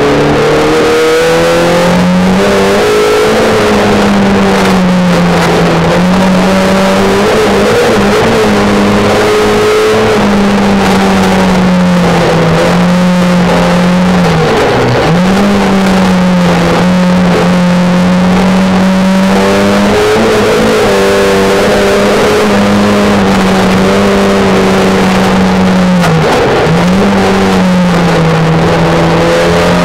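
Folkrace car's engine heard from inside the cabin, running hard at high revs. Its pitch drops sharply and climbs back twice, about 15 and 27 seconds in.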